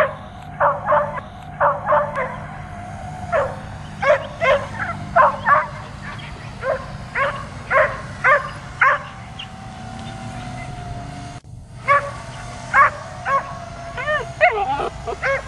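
Dog barking repeatedly in quick runs of sharp barks at a drone flying over it, the drone's motors a steady whine underneath. Near the end the barks turn into higher, bending yelps.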